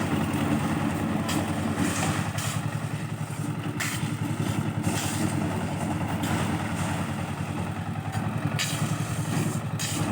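An engine running steadily at a constant speed, with several short scrapes or clatters over it.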